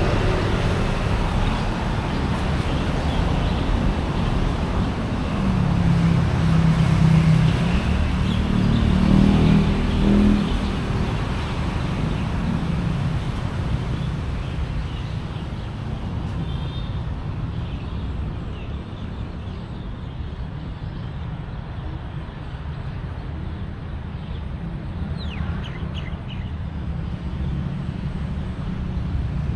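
Busy street traffic: engines running and vehicles passing, with one vehicle louder going by from about six to eleven seconds in.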